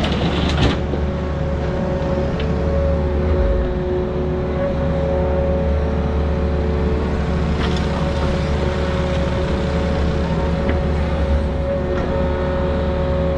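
Excavator's diesel engine running steadily at working revs with a steady pitched whine, as the machine rakes out dumped dirt. A few short knocks or clanks sound right at the start and again about eight seconds in.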